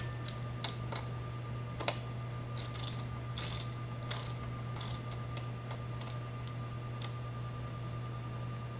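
Hand ratchet wrench clicking in short strokes as it backs out bolts, over a steady low hum.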